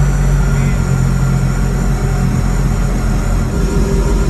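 Boat engine running steadily at low throttle: a loud, deep, even drone.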